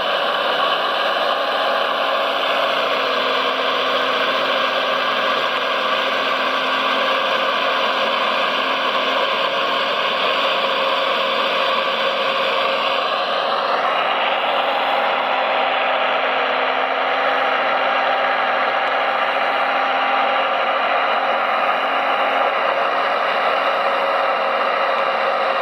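Electric motors and gearboxes of radio-controlled construction models whining steadily, with one whine rising in pitch about halfway through as a motor speeds up.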